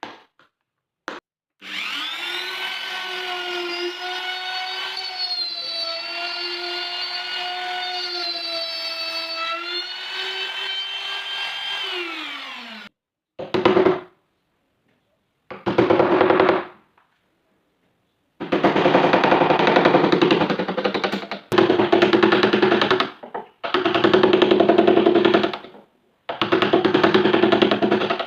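A small electric power tool's motor runs with a steady high hum for about eleven seconds, then winds down in pitch as it is switched off. It is followed by a series of rattling, buzzing bursts of one to two seconds each, as the tool is run in short spells against the work.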